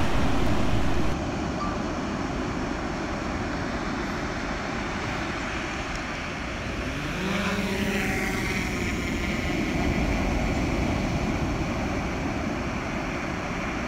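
A DJI Mavic 2 Pro quadcopter's motors and propellers spin up with a rising whine about seven seconds in as it takes off, over a steady rushing noise.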